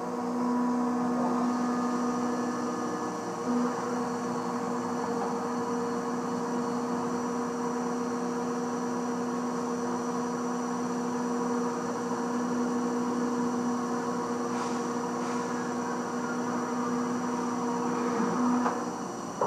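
Haas VF4 CNC mill cutting 304 stainless steel under flood coolant: a steady, loud humming tone with a faint higher whine, holding with one brief dip a few seconds in, then stopping shortly before the end.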